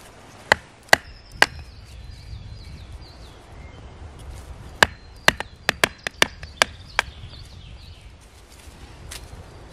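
Batoning kindling: a wooden baton knocking on the spine of a fixed-blade bushcraft knife to drive it through a piece of wood. There are three sharp knocks about half a second apart, then a quicker run of about eight knocks near the middle. Birds chirp faintly in the background.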